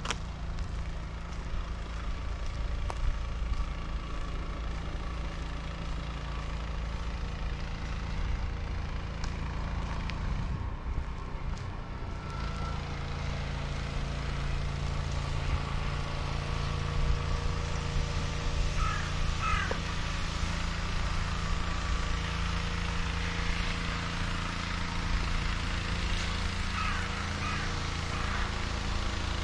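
Outdoor street ambience: a steady low rumble with road traffic noise that grows in the second half, and a few short chirps about two-thirds of the way in and near the end.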